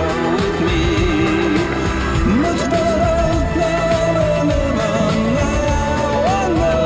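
Background music: a song with a wavering melody line over a full accompaniment.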